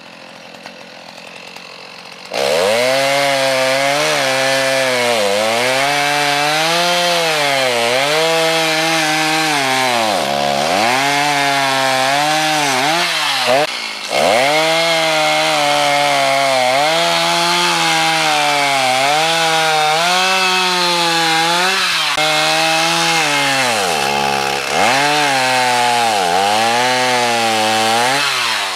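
Two-stroke gas chainsaw idling, then revved to full throttle about two seconds in and bucking a log. Its engine pitch sags and recovers about every two seconds as the chain bites into the wood, with a short letup about halfway through.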